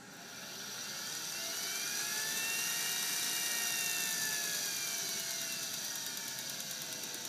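Kingtech K-180 model jet turbine being spun up by its starter during the ignition phase of a diesel start, a rising whine. The pitch climbs for about three seconds, then sags back a little as the rotor slows.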